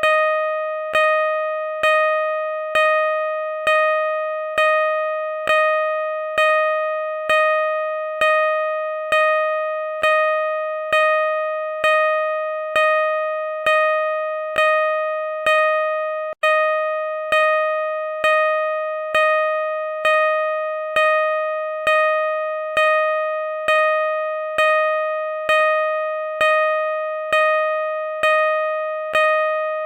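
Car reverse-parking sensor beeping at a slow, even pace of about one beep a second, each beep a clear electronic tone that fades into the next, with a brief dropout about halfway through.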